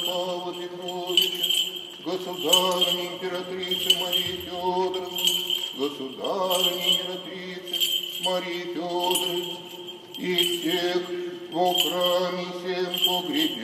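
Voices chanting an Orthodox memorial service in phrases over a steady held note. Small censer bells jingle throughout in a regular swinging rhythm of a little over one beat a second.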